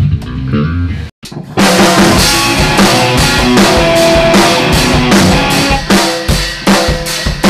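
Heavy rock music led by a drum kit. Low guitar notes in the first second cut out suddenly, and then the drums come in loud with steady, evenly spaced kick and snare hits under held guitar chords.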